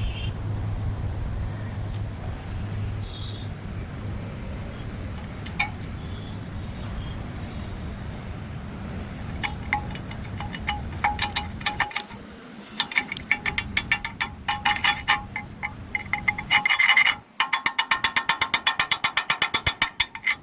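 Hand tool striking a steel weld coupon: a steady low hum, then from about ten seconds in quick metallic taps with a ringing note, settling near the end into an even rhythm of about seven taps a second, as when chipping slag off a 6013 stick weld.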